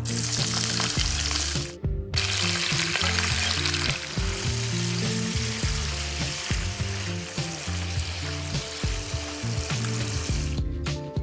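Raw chicken hearts sizzling loudly in hot oil in a non-stick frying pan as they are tipped in and stirred with a spatula. The sizzle breaks off briefly about two seconds in and stops shortly before the end.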